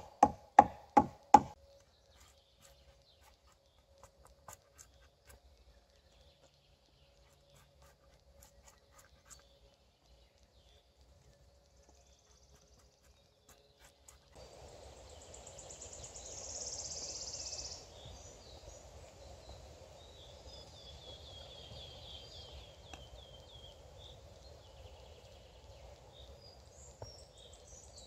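Hatchet chopping the end of a wooden stick to shape a digging-stick blade: several quick, sharp chops about three a second, stopping about a second and a half in. Faint knife-whittling ticks follow. From about halfway through, birds chirp over a steady forest hiss.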